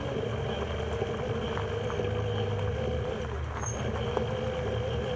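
Wheels of a husky-pulled mushing cart rolling along the trail: a steady low rumble with a steady hum over it and a few light ticks.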